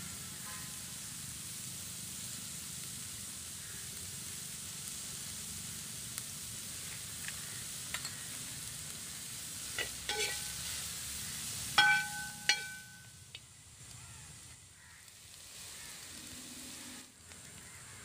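Sliced onions and green chillies sizzling in oil in a shallow metal pan while a steel ladle stirs them. A few ringing clinks of the ladle against the pan come about ten and twelve seconds in, the loudest near twelve seconds, and the sizzle grows quieter after that.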